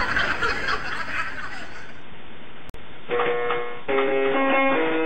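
A steady noisy hiss, then after a brief dropout about three seconds in, plucked guitar music starts, a run of held single notes.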